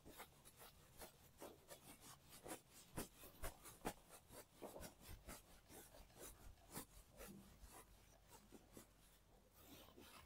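A duster wiping marker off a whiteboard: a faint, quick run of rubbing strokes, several a second, that thin out near the end.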